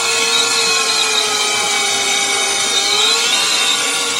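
Electric hand drill with a very small bit running steadily, boring a hole into a bass guitar's wooden fingerboard; the motor's whine wavers slightly in pitch under load.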